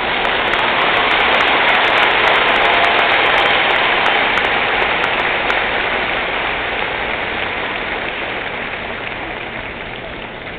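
Arena crowd applauding, swelling over the first couple of seconds and then slowly dying down.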